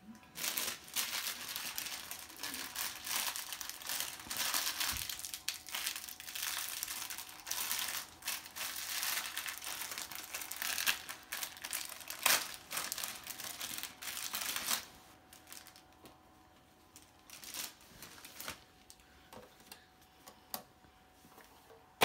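Packaging crumpled and crinkled by hand for about the first fifteen seconds, then quieter, with a few light clicks and knocks as items are handled.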